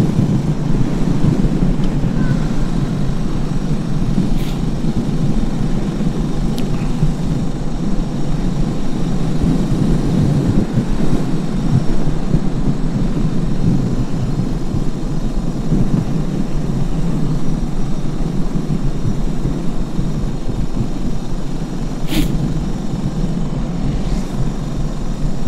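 Suzuki DR 650 single-cylinder motorcycle under way: steady wind rush over the rider's microphone mixed with engine and road noise.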